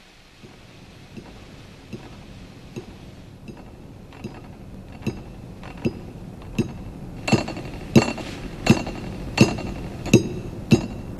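Hard clinks on crockery, like something striking a ceramic plate, repeating at a steady pace of about one every three-quarters of a second. They start faint and grow steadily louder.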